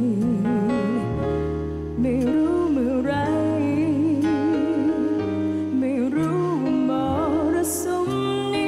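A woman singing a slow pop ballad with a live microphone over a backing band, holding long notes with a wide, even vibrato over sustained chords and bass.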